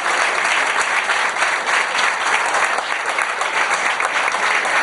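An audience applauding, many hands clapping at once at an even level.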